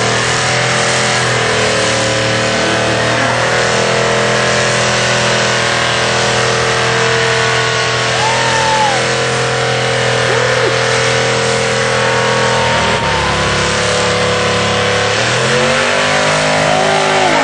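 Car engine held at high revs during a burnout, rear tyres spinning, over a steady rushing noise. The revs stay high with a few quick dips, drop about 13 seconds in, and climb again near the end.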